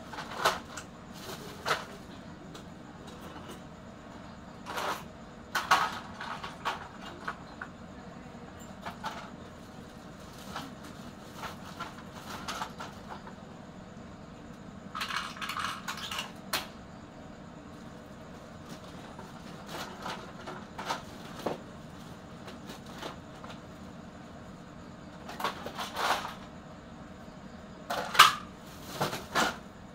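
Computer motherboards knocking and clattering as they are pulled out of a woven plastic sack and dropped onto a pile of other boards, with the sack rustling. The knocks come singly and in short clusters, the loudest near the end, over a steady low hum.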